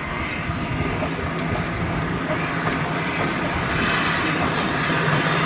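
Vintage GWR coaches rolling slowly past on the rails, propelled by the 1897 Avonside 0-4-0 saddle tank No. 1340 'Trojan' at the rear; the sound grows steadily louder as the locomotive draws level near the end.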